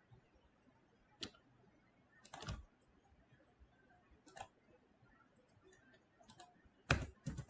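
Scattered computer keyboard keystrokes: single taps a second or two apart, then a quicker group of louder taps near the end.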